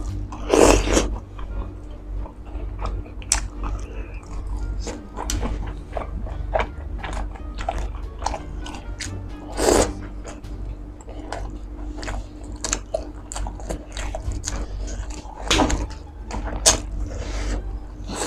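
Close-miked eating: a run of bites and chewing with crisp, crunchy clicks, with three louder bites about a second in, near ten seconds and near sixteen seconds, over background music.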